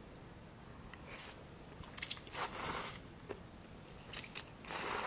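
A person slurping noodles off chopsticks in several short sucking bursts, the last and longest near the end, with a few short clicks in between.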